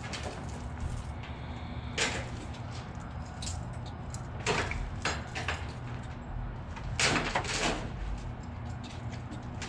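Heavy-duty forklift engine running steadily, with several sharp metallic clanks and scrapes, the loudest cluster about seven seconds in.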